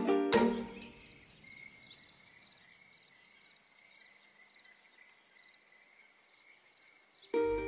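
Faint crickets chirping, a steady run of short high pulses over a thin high drone, after background music dies away in the first second; music comes back in just before the end.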